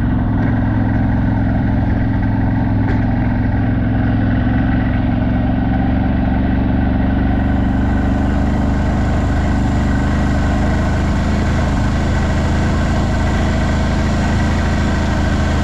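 CF Moto 1000's V-twin engine running steadily, its note holding an even pitch and level throughout.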